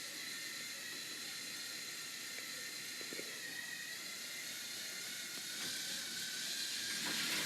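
Faint steady hiss from a running K'nex model roller coaster, getting a little louder near the end.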